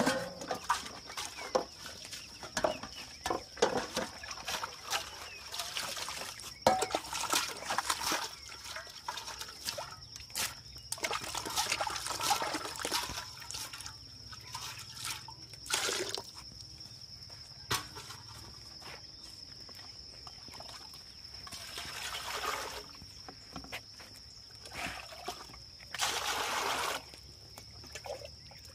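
Water trickling and sloshing, with many irregular clicks and clatters of handling, over a steady high-pitched whine.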